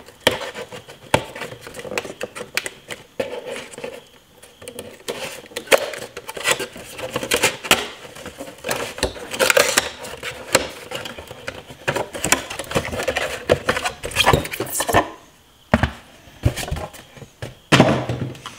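Cardboard tire box being opened and a folded gravel tire unpacked: irregular rustling, scraping and light knocks of packaging being handled, with a short lull near the end.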